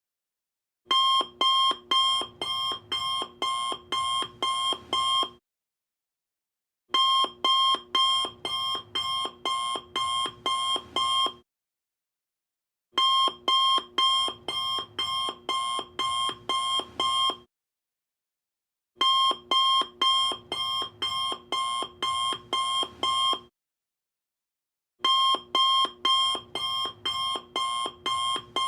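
Electronic alarm-clock beeping in repeated bursts, about two high beeps a second for roughly four seconds, then a pause of a second and a half, over and over.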